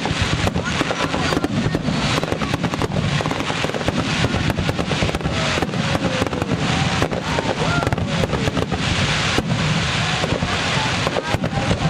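Fireworks display: a dense, continuous barrage of aerial shells bursting, rapid bangs layered with crackling.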